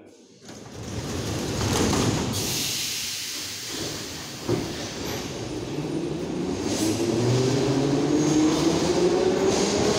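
Metro train pulling out of the station: the cars rumble and rattle, with a single clunk about halfway through. Then the traction motors' whine rises steadily in pitch as the train accelerates.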